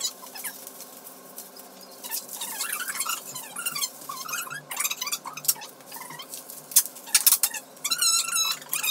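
Small dog whining in high, squeaky rising and falling glides, with a quick run of yips near the end. Sharp clicks and crackles of plastic bags being handled sound over it.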